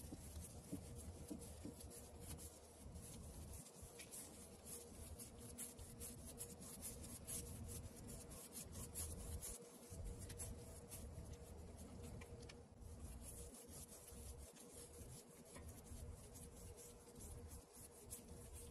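Faint scratching of a nearly dry bristle paintbrush scrubbed in quick repeated strokes over a fiberglass boat hull. The sound comes from dry-brushing a thin coat of paint, with a low steady hum underneath.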